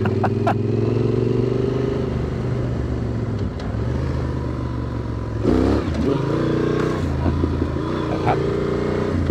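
Engine of a Yamaha Super Ténéré 1200, a parallel twin, running steadily under way, its note shifting with the throttle about halfway through.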